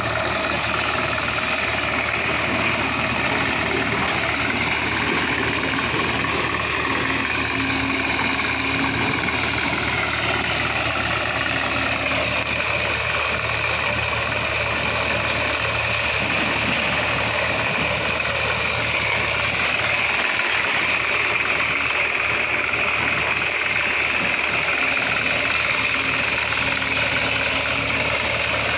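Excavator's diesel engine running steadily at a constant level.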